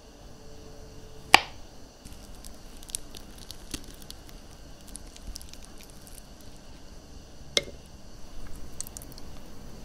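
Ceramic kitchen knife cutting through soft ripe mango and dragon fruit on a cutting board: quiet squishing, with a few sharp knocks of the blade meeting the board, the loudest about a second and a half in. Near the end come a run of light taps.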